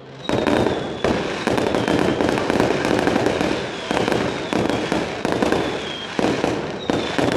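Fireworks display: a fast, continuous barrage of sharp bangs and crackling, several reports a second. A thin high whistle slides slightly downward several times over it.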